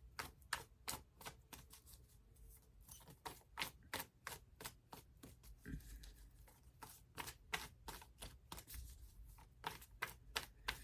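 A deck of tarot or oracle cards being shuffled by hand: a faint, irregular run of short card clicks and flicks, a few a second.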